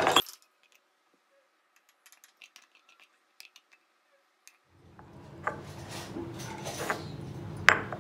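A wooden spoon scraping and knocking rice out of a pan onto a ceramic plate: a few faint ticks, then from about halfway sharper knocks and scrapes, the loudest near the end, over a low steady hum.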